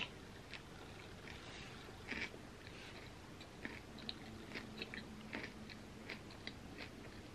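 Close-miked chewing of a mouthful of soft, gooey Nutella cookie pizza, faint, with small wet mouth clicks and smacks scattered throughout. A single sharp click right at the start, as the spoon is set down on the pan.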